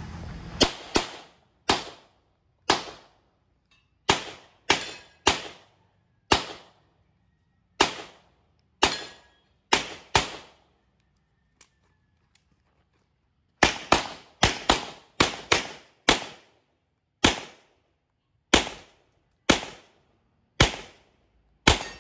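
Handgun shots fired singly and in quick pairs, about two dozen in all. There is a pause of about three seconds in the middle, then a faster string of shots.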